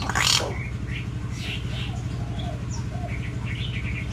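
Myna birds calling: a loud harsh squawk just after the start, then assorted short chirps and whistles, over a steady low hum.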